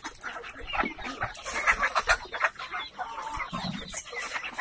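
A large flock of free-range village chickens (ayam kampung) clucking, many short calls overlapping, with many sharp clicks scattered among them.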